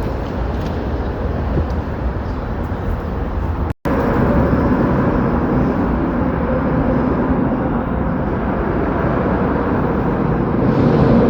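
Steady rumble of city street traffic. It breaks off for an instant about four seconds in, then goes on slightly louder with a steady hum.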